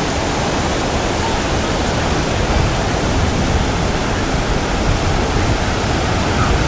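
Ocean surf rushing steadily, with no single wave or impact standing out.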